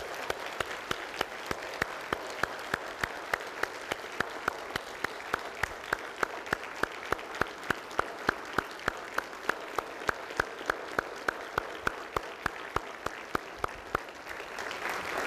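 A large audience applauding steadily, with one clapper close by whose claps stand out sharply at about three to four a second.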